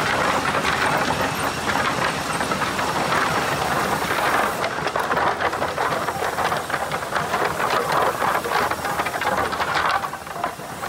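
Sawmill resaw line running: board conveyors and chains clattering with a dense stream of rapid knocks as sawn kiln-dried pine boards ride along, over steady machinery noise. The sound dips briefly near the end.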